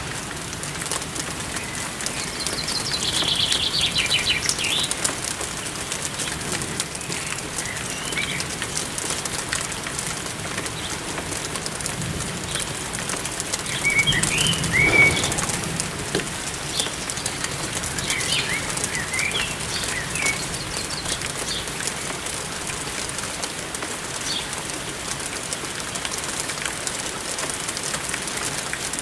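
Steady rain falling on roofs and gardens, with small songbirds chirping and whistling through it: a short trill a few seconds in, and more calls about halfway and later. A low sound swells briefly about halfway through.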